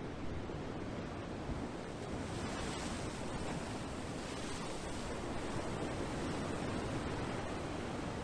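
Ocean waves washing in a steady rush of noise, swelling a little about two seconds in.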